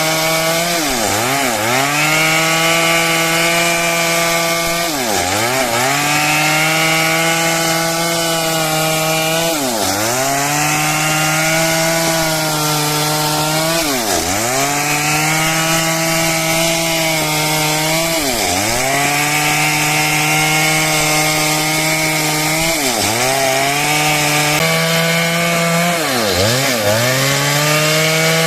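Stihl MS 382 two-stroke chainsaw running at high revs while cutting wood. Its engine note dips sharply and climbs back about every four seconds, seven times in all.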